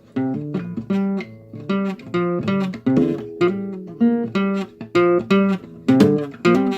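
Acoustic guitar playing an instrumental passage, with chords plucked about two to three times a second, each ringing briefly and then fading.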